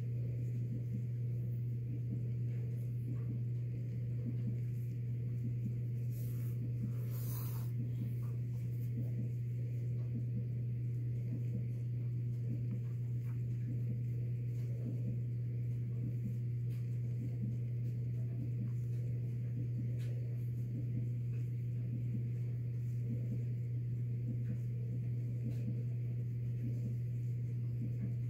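A steady low hum without a break, with a brief soft hiss-like noise about seven seconds in.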